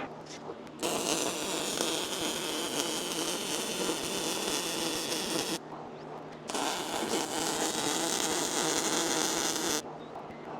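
MIG welder laying weld on a car's steel shock-tower seam: a steady crackling buzz in two runs of a few seconds each, with a short break between them about halfway through.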